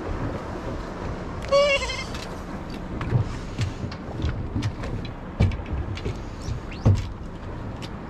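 Water slapping and knocking irregularly against the hull of a small open fibreglass boat on the sea, the loudest knocks about five and a half and seven seconds in. About one and a half seconds in there is a short, wavering, bleat-like call lasting about half a second.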